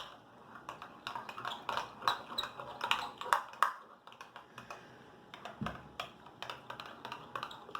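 A utensil clicking and scraping against a container while slime is stirred, in light irregular taps. The slime is thickening toward setting after activator was added.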